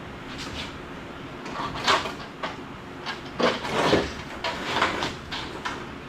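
Metal truck parts being handled and shifted, a run of clunks and scrapes from about a second and a half in until near the end.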